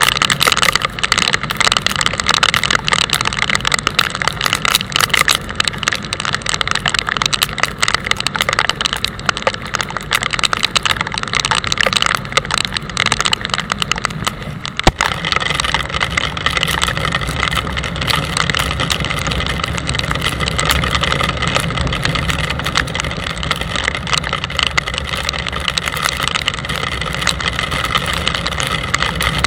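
Motorcycle engine running at road speed with wind rushing over the microphone. About halfway through the sound dips briefly, and afterwards the low end is heavier and steadier.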